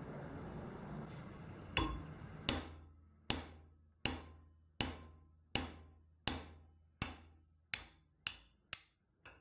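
A hammer striking metal about a dozen times in a steady rhythm, each blow ringing briefly, the strikes coming quicker toward the end.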